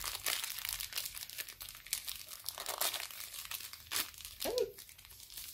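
Thin plastic wrapper crinkling and tearing as it is peeled off a small mochi squishy toy: a dense run of crackles that thins out near the end.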